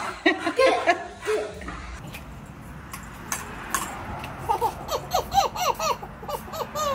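A baby laughing in a quick run of short giggles through the second half. Before it, in the first second or so, a dog's short yips and whines.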